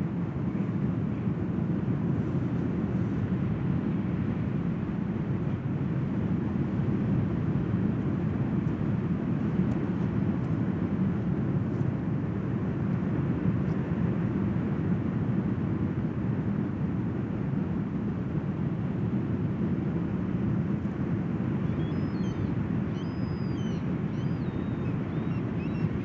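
Ocean surf on a sandy beach: a steady, low rush with no separate wave crashes standing out. Faint high bird calls chirp a few times near the end.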